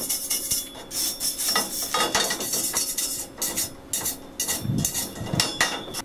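Steel wire brush scrubbing slag off a fresh stick weld on steel square tubing: a fast run of scratchy strokes with a few heavier knocks near the end.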